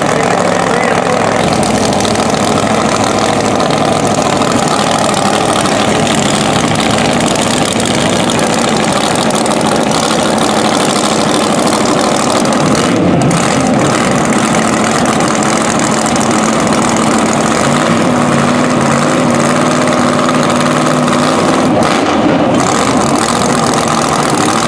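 Drag-race car engines idling, loud and steady.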